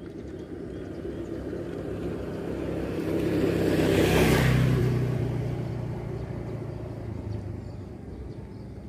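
A motor vehicle passing by: its engine and road noise grow louder, peak about four seconds in, then fade away.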